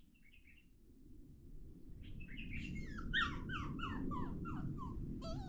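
A dog whining in a quick run of short, falling yelps, about four a second, starting about two seconds in after a few faint high chirps.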